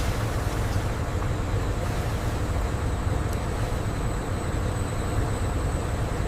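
Steady low mechanical rumble with a faint high-pitched whine over it, from running machinery.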